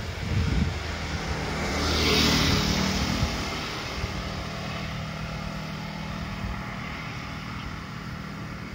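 A road vehicle passing by, its sound swelling and fading about two seconds in, over a steady low engine hum.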